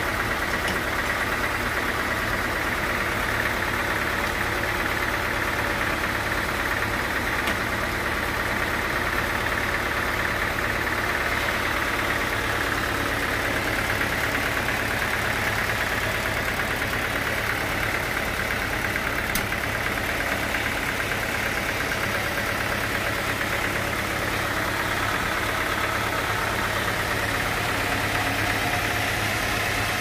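Band sawmill running steadily, a continuous machine hum with a steady higher-pitched tone above it.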